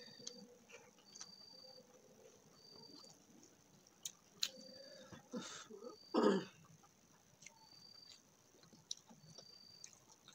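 Fingers mixing and scooping rice on a steel plate, with small clicks and scrapes, and eating sounds. About six seconds in comes a brief throat-clearing sound, the loudest thing heard. A faint high chirp repeats about every second and a half.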